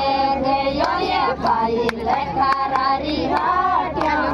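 High women's voices singing a Rajasthani folk song (a Mayra or bhat geet) in long held, wavering notes, with scattered sharp hand claps.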